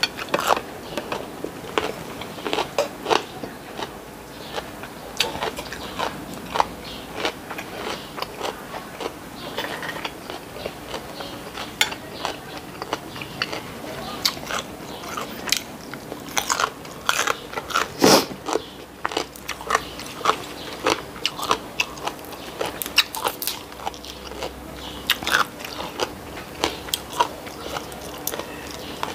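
A person chewing and biting into food close to the microphone, including raw vegetables, with many irregular sharp crunches and mouth clicks. A louder crunch comes about 18 seconds in.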